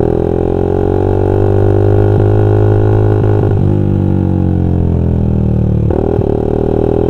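Suzuki Satria FU's single-cylinder four-stroke engine running through a Pro Liner aftermarket exhaust while riding, its note rising and falling with the throttle. It dips briefly twice, about halfway through and near the end, as if for gear changes. The note is full and round.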